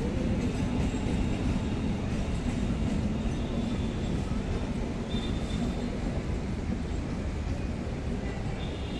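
MEMU electric multiple-unit train running along the track as it departs, a steady rumble of wheels on rail with a low hum, easing slightly as the train draws away.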